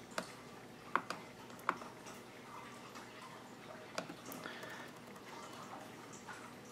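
A handful of sharp, irregular clicks from working a laptop's mouse and keys: several in the first two seconds, one about four seconds in, and a few fainter ones after.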